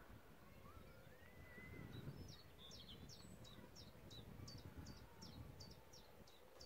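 Faint birdsong over a low rumble of wind: a small songbird repeats a short, sharp high note about three times a second from about two seconds in, after a softer wavering whistle.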